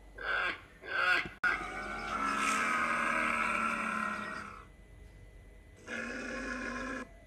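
Bactrian camel calling: a long pitched call of about three seconds, then a shorter one about a second later. Two short grunts open it.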